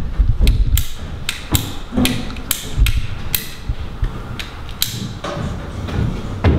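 Ratcheting plastic pipe cutter clicking as its jaws are worked shut on a plastic heating pipe: a run of sharp clicks, a couple a second, thinning out toward the end.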